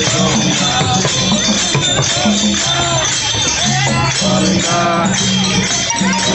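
Devotional bhajan music: voices singing a melody with jingling tambourine and hand-cymbal percussion over sustained low notes.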